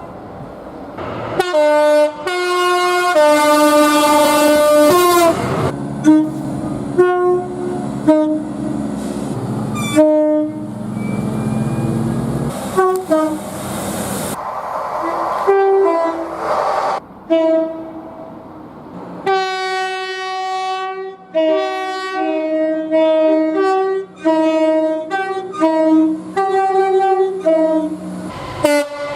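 Chorded multi-note locomotive air horns blowing in a string of blasts from several clips cut together. Some blasts are long and held; near the end comes a quick run of short toots. The sound changes abruptly at each cut.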